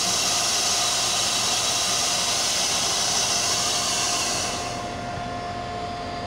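An SRT CRRC Qishuyan (QSY) diesel-electric locomotive standing with its engine running: a loud hiss of venting air cuts off about four and a half seconds in, over the steady engine and a thin, steady whine.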